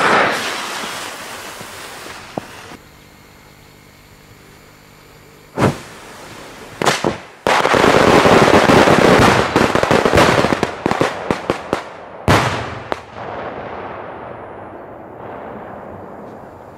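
Fireworks going off at ground level. A loud bang at the start dies away, a few single bangs follow, then a dense, rapid barrage of cracks and bangs lasts about four seconds. It ends in one more loud bang and fading crackle.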